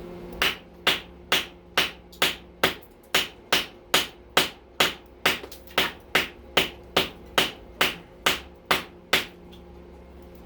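A hammer beating on a circuit breaker to break it apart and free a soldered contact: about twenty sharp, evenly spaced blows, a little over two a second, stopping about 9 seconds in.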